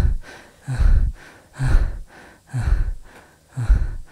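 A person breathing heavily and fast, close to the microphone, about one breath a second.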